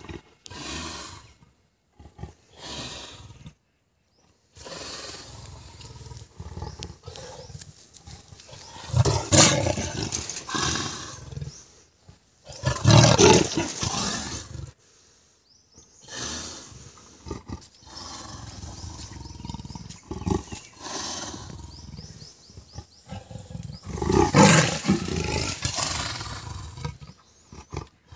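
Leopard growling and snarling in repeated outbursts, the loudest about a third of the way in, around halfway, and shortly before the end.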